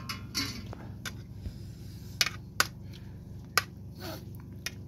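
Metal spoon and fork clinking against a plate while mixing noodles: about four sharp clinks in the second half, over a steady low hum.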